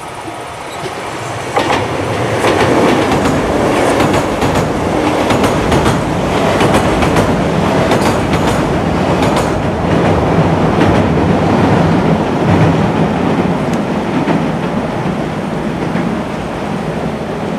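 Kintetsu Minami-Osaka Line train crossing the Yamato River railway bridge, its wheels clacking over the rail joints. It comes in loud about a second and a half in and keeps running steadily.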